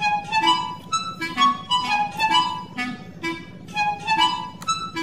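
Background music: a lively melody of short pitched notes following one another at a steady, bouncy pace.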